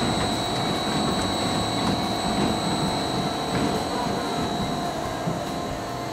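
Small roller coaster train rolling along its steel track, with a steady rumble of wheels on the rails.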